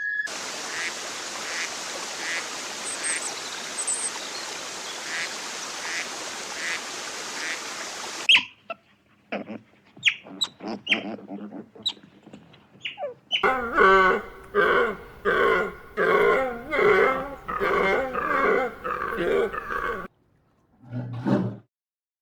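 Animal sounds in several short clips: an even hiss for about eight seconds, then scattered clicks, then a run of repeated pitched calls about two a second, and a short low call near the end.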